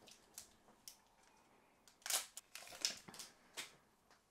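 Foil wrapper of a hockey card pack being torn open and crinkled, in several short rustling bursts from about two seconds in, after a few faint ticks.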